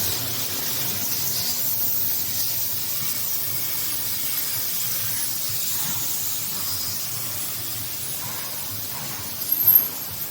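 CNC V-grooving machine cutting a groove in sheet metal: a steady high hiss with a low hum under it, and a brief sharp squeal near the end.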